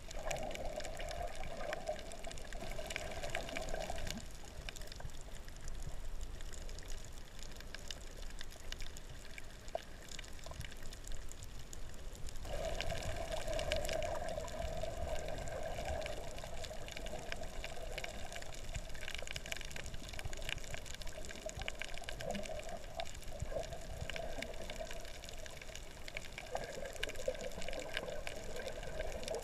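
Underwater sound picked up by a snorkeler's camera: a steady watery rush with scattered faint ticks, and a drone that fades out and comes back for a few seconds at a time.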